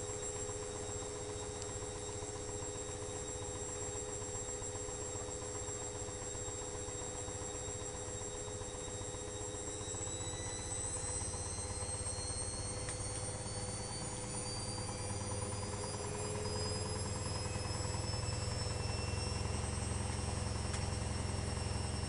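Electrolux EWS 1045 washing machine running with a steady motor whine; about ten seconds in the whine starts rising in pitch as the drum speeds up, and a deeper hum grows louder near the end.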